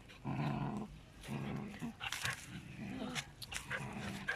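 Dogs growling during rough play-fighting: a run of low growls, each under a second, about four in a row, with short scuffling clicks between them.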